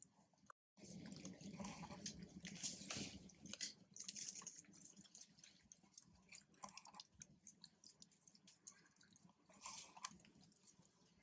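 Faint, irregular wet clicks and smacks, chewing-like mouth sounds from monkeys close by, with a brief dropout about half a second in.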